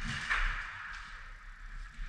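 Soft rustling and swishing of clothing and gear as the player wearing the camera turns quickly, with a faint low rumble underneath; a short swish right at the start and another a moment later.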